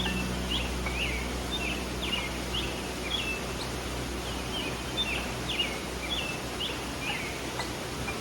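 A small songbird chirping over and over, short falling chirps about two a second, against the steady rush of a flowing stream. A low sustained music note fades out during the first part.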